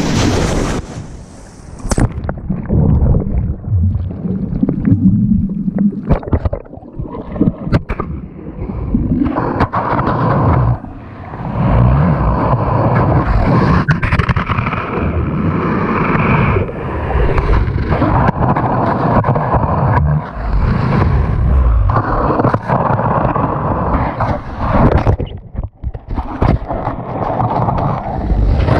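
Surf water sloshing and gurgling loudly and irregularly right against the microphone, with heavy low rumbling surges.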